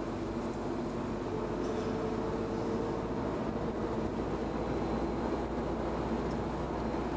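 Steady running noise of a car driving on a paved road: engine hum and tyre roar, unchanging throughout.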